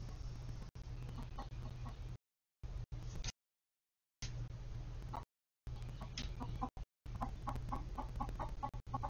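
Chickens clucking off-camera in runs of short, rapid clucks, about five a second, over a steady low hum. The audio drops out to complete silence several times in the first half.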